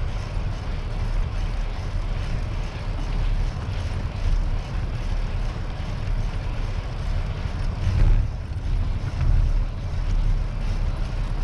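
Wind rumbling and buffeting on the microphone of a camera on a moving bicycle, a steady low rumble that swells briefly about eight seconds in.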